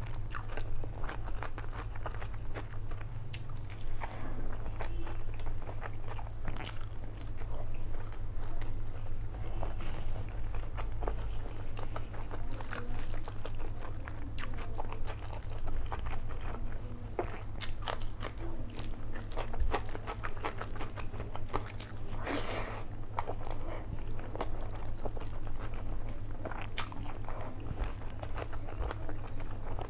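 Close-miked chewing and mouth sounds of a person eating mutton biryani by hand: many short clicks and smacks of chewing and handling the rice, over a steady low hum.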